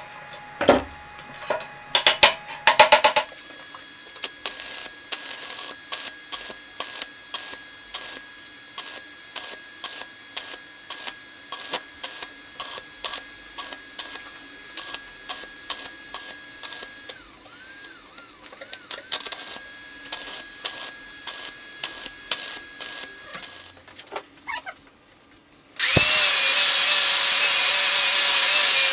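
A few metal clanks, then an electric welder working on a steel motorcycle exhaust silencer: a faint steady whine with regular crackling clicks, two to three a second, for about twenty seconds. Near the end an angle grinder starts up and grinds the steel pipe with a loud, steady whine, the loudest sound.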